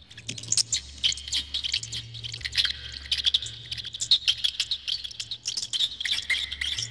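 Small rodent squeaks: rapid high-pitched chirps mixed with dense fast clicking throughout, with a low hum that comes and goes underneath.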